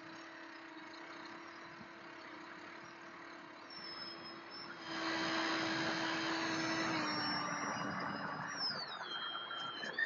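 Onboard sound of a micro RC Twin Otter's small electric motors and propellers in flight, a steady hum with air rushing past. It gets louder about five seconds in and eases back about seven seconds in. Near the end, high whines slide up and down.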